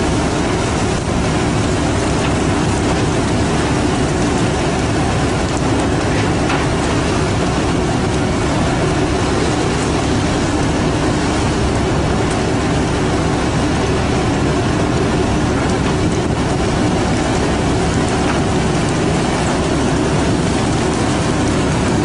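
Fishing boat's engine running steadily: a loud, even drone with a noisy hiss over it and no break.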